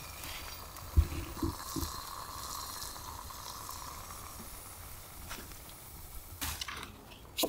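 Kettle at the boil on a split-log rocket stove burning from inside: a steady hiss and sizzle from the fire and the heating water, with a few soft knocks.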